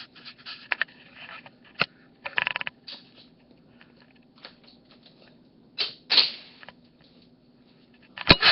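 A cat playing with a string close to a webcam microphone: scattered scuffs, scratches and rustles with a few sharp knocks, the loudest near the end.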